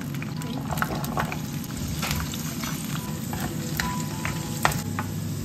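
Whole peeled garlic cloves frying in oil in a pan, a steady sizzle with many scattered small pops and crackles.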